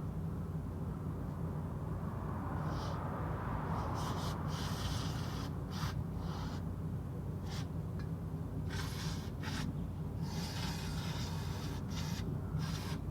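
Irregular hand rubbing or scraping strokes, some short and some drawn out, coming more often in the second half, over a steady low hum.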